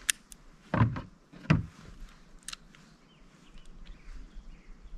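Handling of a revolver and .38 Smith & Wesson cartridges: a few sharp small clicks and two dull knocks about half a second apart, followed by faint ticks as the rounds are tried in the cylinder's chambers.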